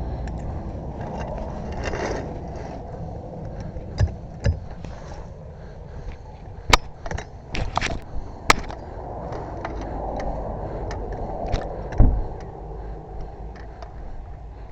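Sharp metal knocks, clinks and scrapes of tire-change tools being handled, with the loudest knock near the end, over a steady low rumble like passing traffic.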